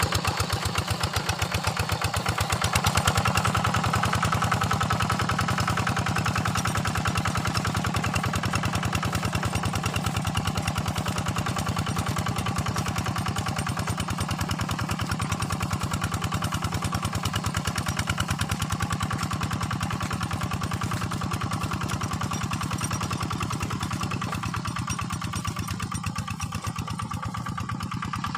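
Quick Impala two-wheel hand tractor's engine running steadily under load as it works a flooded paddy field, easing off slightly near the end.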